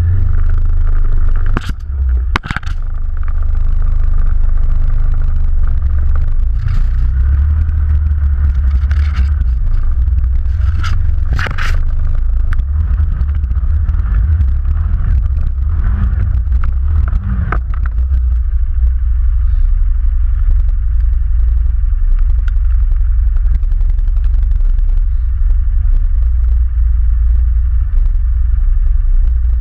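ATV engine running steadily under way, with a few sharp knocks and scrapes, the loudest around two seconds in and again near the middle.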